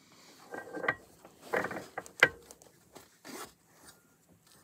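A rebuilt ATV CV axle being worked back into place: a few short metallic scrapes and clunks as the shaft slides in, with a sharp click about two seconds in.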